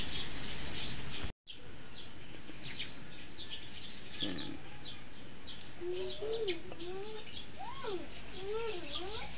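Birds chirping repeatedly in the background, with a few lower, wavering up-and-down calls in the second half. The sound cuts out briefly about a second and a half in.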